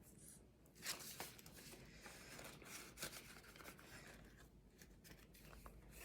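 Faint rustling and handling of paper banknotes and cash envelopes, with a few light ticks, the clearest about a second in.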